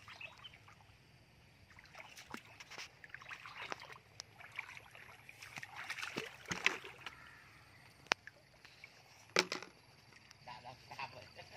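Bare feet wading through shallow muddy water, sloshing and splashing in uneven steps, loudest about halfway through. A few sharp clicks stand out in the second half.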